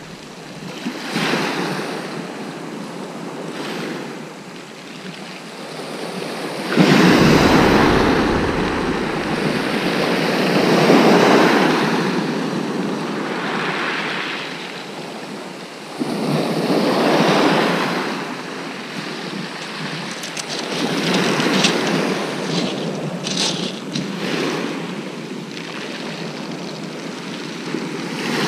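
Rough sea: waves breaking and washing up a shingle beach in repeated surges every few seconds. About seven seconds in, a strong gust of wind hits the microphone.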